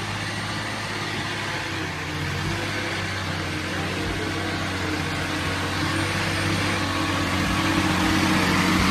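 Bus engine running steadily at low revs as the bus creeps along a rough dirt road, growing louder as it approaches.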